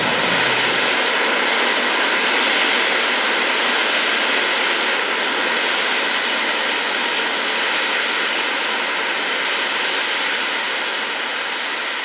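Steam blowing off from the LNER V2 steam locomotive Green Arrow in a loud, steady hiss.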